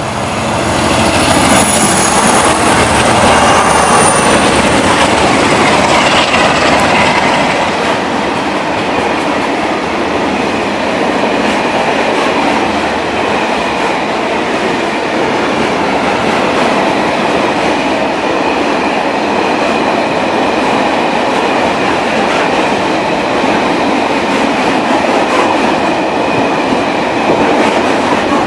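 A pair of Class 47 diesel locomotives passes close by, hauling a long train of empty box wagons. The noise is loudest for the first several seconds as the locomotives go past, then settles to a steady running noise as the wagons roll by.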